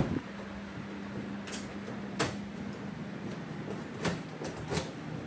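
A few sharp clicks and knocks from a metal door handle and latch being worked, over a steady low hum.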